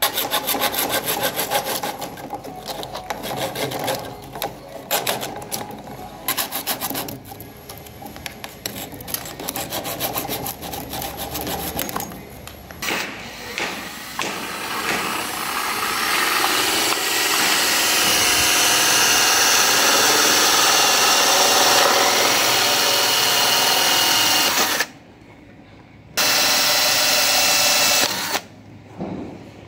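A hacksaw cutting through PVC conduit in quick rasping strokes for roughly the first dozen seconds. Then a cordless drill with a hole saw bores through a plastic switch box, running steadily and stopping briefly twice near the end.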